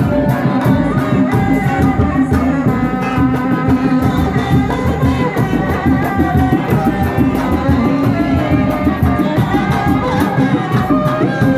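Kuda lumping accompaniment music: kendang hand drums beating a fast, steady rhythm under a wavering melody.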